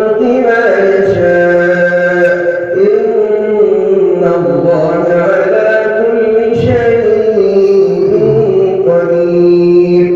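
A man reciting the Quran in the slow, melodic tajwid style, drawing out long held notes that rise and fall in pitch with only brief breaks for breath.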